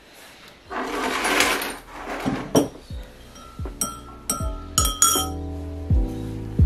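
Teaspoon stirring in a ceramic mug, clinking against the side several times with a bright ring. Soft background music with a kick-drum beat comes in partway through, after a brief rustling hiss near the start.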